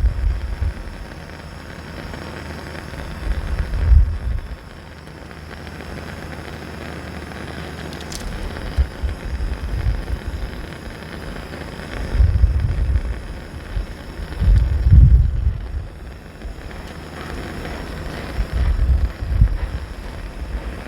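Coleman 242B pressure lantern burning with a steady hiss, now holding a consistent burn. Gusts of wind buffet the microphone several times.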